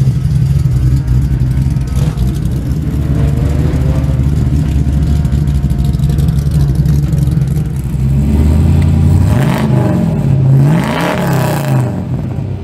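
Car engine running at a steady low idle, then revved up and back down twice, about nine to eleven seconds in, as the car moves off. The sound drops away near the end.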